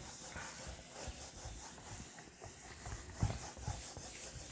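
Whiteboard duster rubbing across a whiteboard as the writing is wiped off: a faint, repeated scrubbing, with a few soft bumps about three seconds in.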